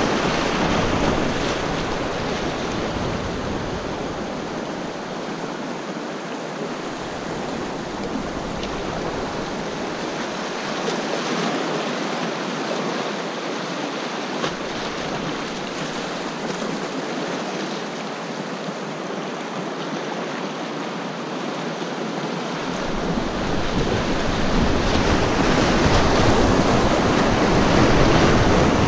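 River rapids rushing and splashing around a whitewater kayak as it runs through. The rush swells louder in the last few seconds as the kayak drops into a large foaming rapid.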